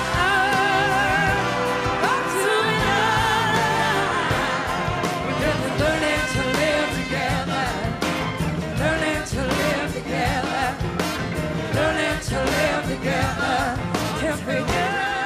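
Live soul-rock band playing with singing voices: held, wavering vocal lines, backing singers among them, over keyboards, percussion and saxophone.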